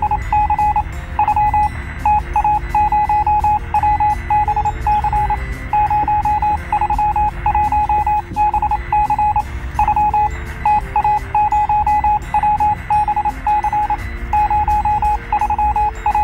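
A rapid electronic beep at one high pitch, pulsing in uneven groups of short and longer beeps, over the low rumble of a truck driving on a dirt trail.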